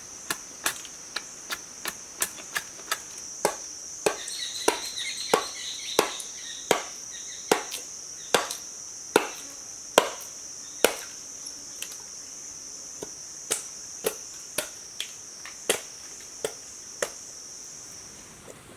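Wood being chopped with a blade for firewood: sharp single chops at about one to two a second, with a short pause partway through. A steady high insect drone runs underneath and stops shortly before the end.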